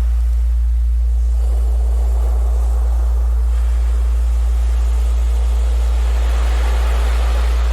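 A steady low hum from a continuous low tone of the kind played as a Rife frequency, under recorded ocean surf. The waves swell and recede, dropping away about a second in and building again near the end.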